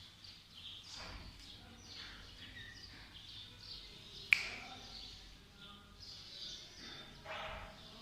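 Lovebirds chirping and chattering in quick, short high calls, with one sharp click a little past the middle.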